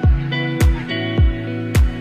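Background music: plucked guitar notes over a steady electronic beat, with a deep kick drum about twice a second and a sharper hit about once a second.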